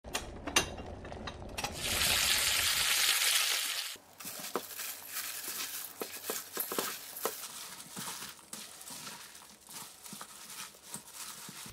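A plastic-gloved hand tossing and squeezing blanched butterbur greens in seasoning in a stainless steel mixing bowl: wet squishing and rustling with scattered light clicks against the bowl. About two seconds in, a loud hissing rush lasts nearly two seconds before the mixing sounds take over.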